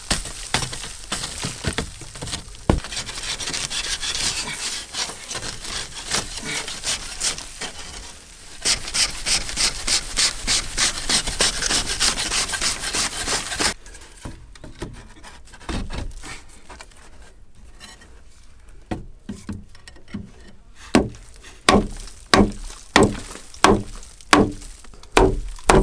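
Hand-tool work on wood: scraping and rubbing, then evenly repeated sawing strokes about two a second. After a sudden change, a quieter stretch gives way to a run of sharp knocks near the end.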